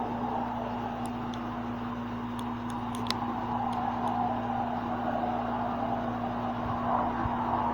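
Ceiling fan running: a steady motor hum under the rush of air from the blades, which swells and eases gently, with a few faint ticks.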